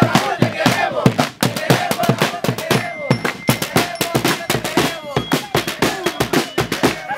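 A small street drum band of bass and snare drums playing a rapid beat, with hand claps and a group of voices chanting along.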